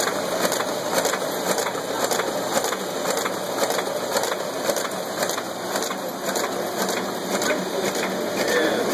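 Paper folding machine running, its rollers feeding folded signatures out in a shingled stream: a steady mechanical clatter with regular clicks.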